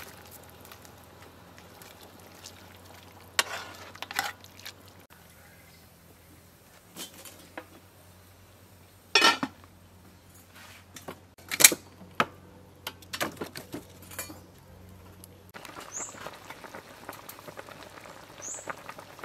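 Metal cookware clinking and knocking: an aluminium soup pot, its lid and a metal spoon, in a handful of separate clinks with the loudest near the middle. In the last few seconds there is a soft hiss of the soup boiling in the pot.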